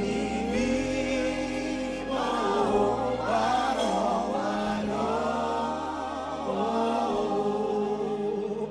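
Several voices singing a slow worship song in long, held notes with vibrato, over sustained low notes underneath.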